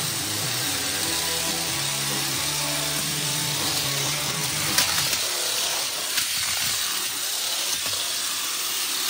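Small electric motors and gears of two Crush Gear toy battle cars whirring as they drive around a plastic arena, with a sharp knock about five seconds in. Background music plays under it.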